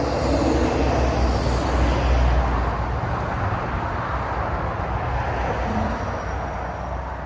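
Rolling thunder from a thunderstorm: a long, low rumble that swells over the first two seconds or so, then slowly dies away.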